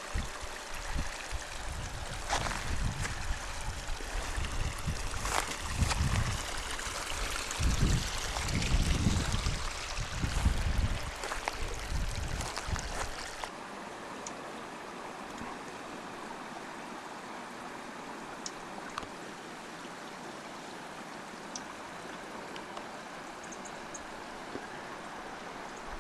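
Small mountain creek trickling over rocks, with gusts of wind rumbling on the microphone. About halfway through the sound cuts abruptly to a quieter, steady hiss.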